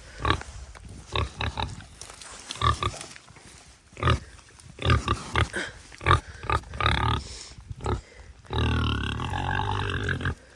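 A pig grunting in a run of short, irregular grunts, with one longer drawn-out grunt near the end.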